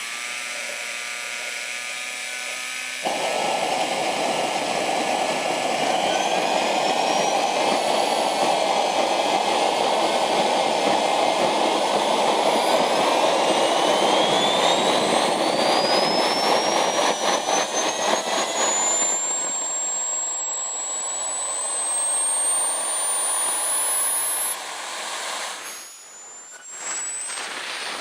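JetCat P-20 model jet turbine running its kerosene start sequence. Steady whining tones give way about three seconds in to a sudden loud rushing roar as it lights. A thin high whine then climbs steadily in pitch as the turbine spools up. Later the roar eases and the level dips briefly near the end.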